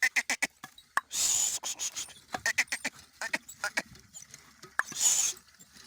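Goats: runs of quick sharp clicks, with two short hissing bursts, one about a second in and one near the end.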